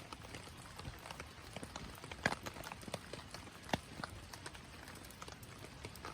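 Wood fire crackling: irregular sharp pops and snaps, a few louder ones, over a faint hiss.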